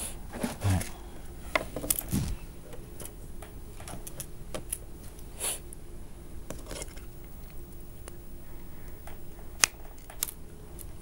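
Scattered light clicks and taps of small model-boat fittings and tools being handled on a worktable, with one sharper click near the end, over a faint steady hum.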